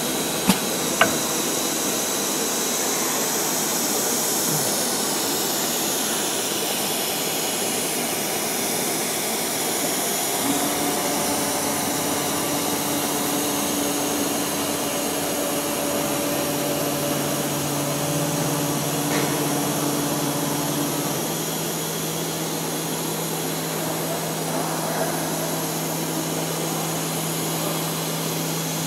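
SINMIC SC1325 ATC CNC wood router's spindle running and its bit routing a wooden panel: a steady machine noise with a high whine. Two sharp clicks come in the first second, and low hums join from about ten seconds in.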